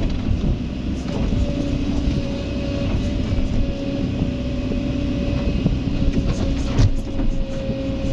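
Kobelco SK excavator's diesel engine running under load with a steady whine, and scattered knocks, the sharpest about seven seconds in.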